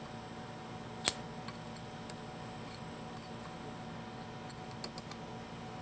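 Light metal clicks from a lathe's compound rest being turned and set: one sharp click about a second in and a few faint ticks near the end, over a steady low hum.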